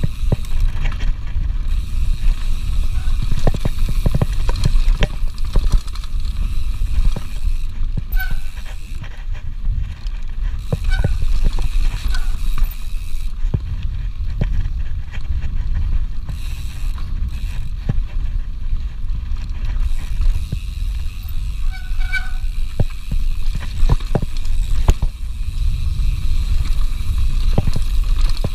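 Mountain bike ridden fast along a dirt forest trail: a steady low rumble of tyres and wind on the microphone, with frequent knocks and rattles from the bike over bumps and roots, and a few brief squeaks.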